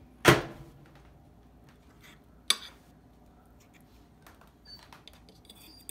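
A sharp knock about a third of a second in, then a fork clinking against a plate as it cuts into a cooked fish fillet, with a few lighter clicks and scrapes.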